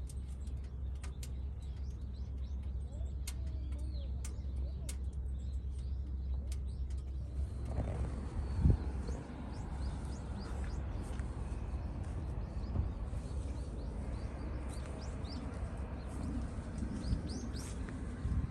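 Birds chirping and calling, with low cooing calls in the first half, over a steady low rumble. About halfway the background changes to a broader hiss, with one sharp knock shortly after, and a run of quick chirps near the end.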